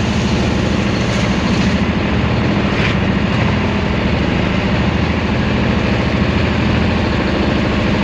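Outrigger fishing boat's (bangka's) engine running steadily, a low, even drone.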